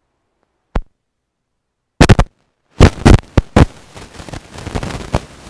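A single click, then loud sharp knocks and clatter about two seconds in, followed by a run of further knocks with rustling noise between them.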